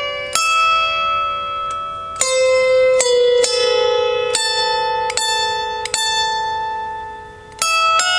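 A Music Maker lap harp plucked in a slow melody of single notes and small chords, each struck note left to ring on with a bell-like tone. One note dies away about seven seconds in before a new chord is plucked.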